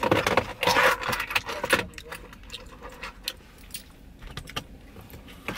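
Loose change being rummaged for: coins jingling and clinking, with a flurry of rattling clicks in the first two seconds and scattered clicks after.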